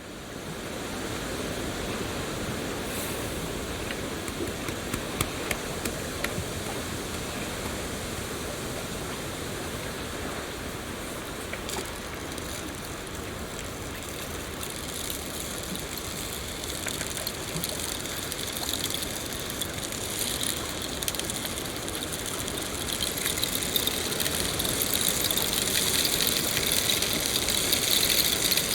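Steady rain falling, an even hiss with a few scattered drop ticks, growing louder and heavier over the last third.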